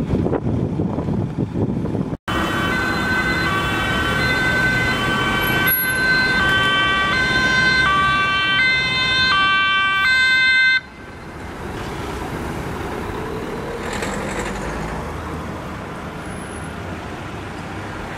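Dutch ambulance's two-tone siren, loud, switching between a high and a low note about every 0.7 seconds. It starts about two seconds in and cuts off abruptly about eleven seconds in. Before and after it is the engine and tyre noise of the Mercedes-Benz ambulance van driving past.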